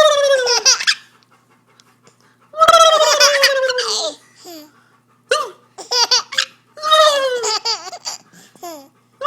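A baby laughing hard in four bursts of high-pitched laughter, with short pauses between them. Each burst is a string of squeals that falls in pitch.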